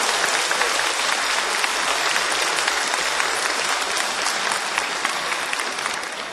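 Theatre audience applauding at the end of a folk-music performance: dense, even clapping that slowly dies down toward the end.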